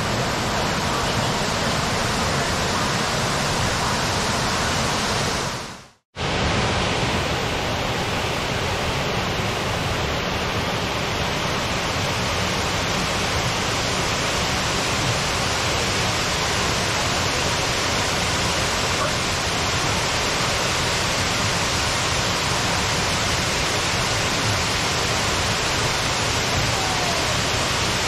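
Waterfall cascading over rock ledges into a pool, a steady, even rush of water that drops out briefly about six seconds in and then resumes.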